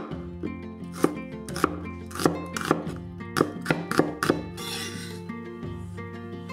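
Cleaver slicing a red onion on a wooden cutting board: about eight sharp knocks of the blade on the board, coming faster through the middle and stopping a little past halfway, over background music.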